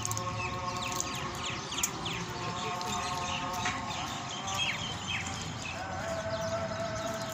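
A flock of birds chirping, a dense stream of short falling calls, with a few steady tones underneath.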